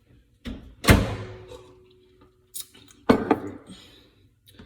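Kitchen knocks and clatter: a hard knock about a second in with a faint ring trailing after it, then a click and a couple more knocks a couple of seconds later, as things are handled around the counter and cupboards.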